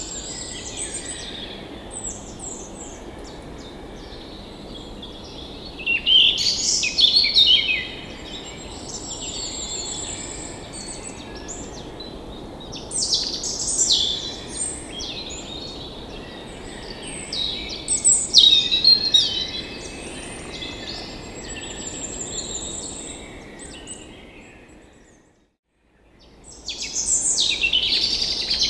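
Several birds singing and chirping in bursts over a steady background hiss. A little before the end the sound fades to silence for about a second, then birdsong resumes.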